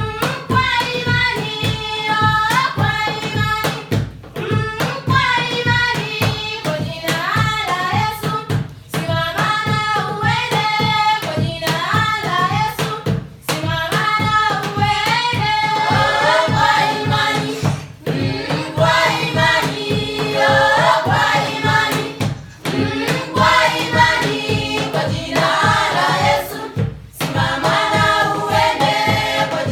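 Choir singing in several voices over a steady, regularly pulsing low beat.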